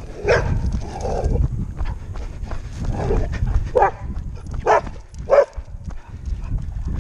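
Dog barking in several short, sharp barks, spaced irregularly, over a steady low rumble.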